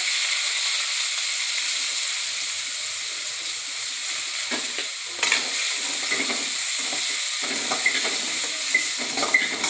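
Chopped onions sizzling loudly in hot oil in a kadai, the sizzle starting just as they go in. From about halfway a spatula stirs and scrapes them around the pan, with a few small clicks near the end.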